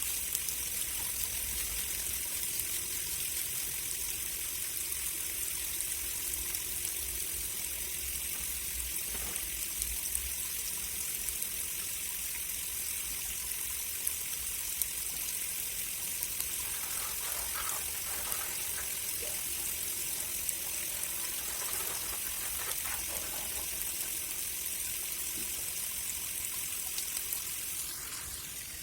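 Water running steadily, as from a tap or hose during cleaning, with a few faint knocks in the middle. The rush drops slightly just before the end.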